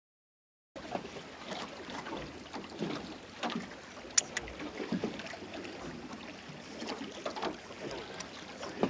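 Silence for under a second, then wind and water wash on the deck of a small fishing boat at sea, with a few scattered light clicks and knocks, one sharper than the rest about four seconds in.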